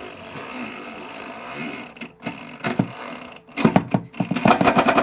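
A few knocks and clicks, then a power screwdriver starting up about four and a half seconds in, spinning with a rapid, even rattle as it backs a screw out of the boat's woodwork.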